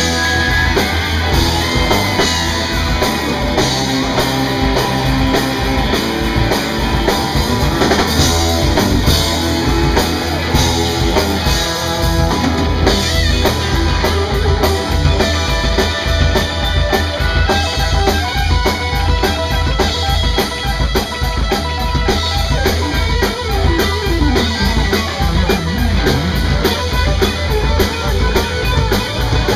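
Live rock band playing loud: electric guitars and electric bass over a drum kit keeping a steady beat.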